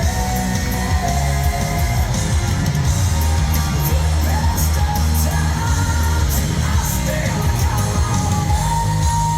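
Loud rock music with a steady, heavy bass line and held higher notes, with yells from a concert crowd.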